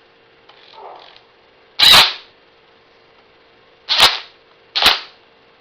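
Three sharp, loud cracks: one about two seconds in, then two more close together nearly a second apart near the end, over a faint steady hum.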